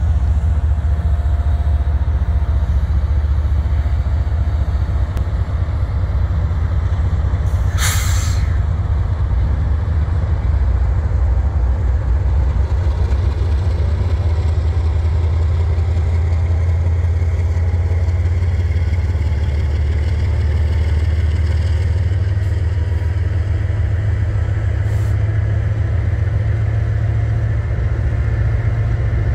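Several diesel-electric locomotives pulling an arriving freight train slowly past, their engines giving a steady deep rumble. About eight seconds in there is one short, sharp hiss of air from the brakes.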